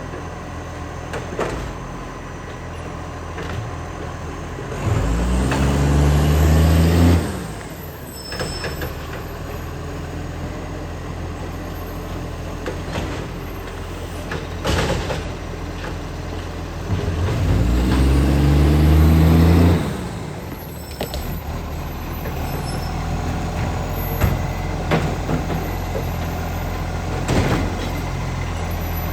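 International Acco garbage truck's diesel engine running with an exhaust leak, revving up twice for a couple of seconds each, the second time about twelve seconds after the first, with a rising whine during the first. Sharp knocks and clatters come in between.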